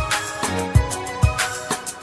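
Background music with a steady drum beat, about two hits a second.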